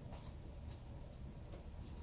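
Faint rustling and light crinkles of a plastic bag of mixed salad greens as leaves are picked out by hand, about four soft clicks over a low steady hum.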